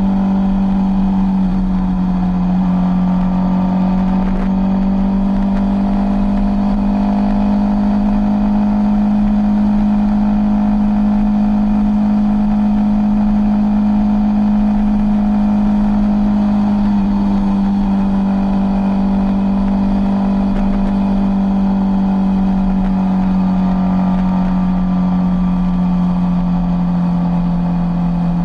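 Sport motorcycle engine running steadily at highway cruising speed, a constant drone whose pitch eases down slightly near the end.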